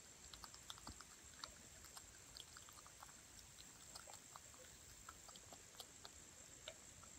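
Groundhog chewing a piece of peach: faint, irregular wet clicks and smacks of its teeth and mouth, several a second.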